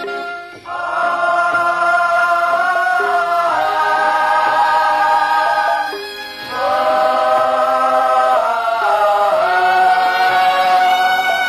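Music: a choir singing long held notes in two phrases, with a short break about six seconds in.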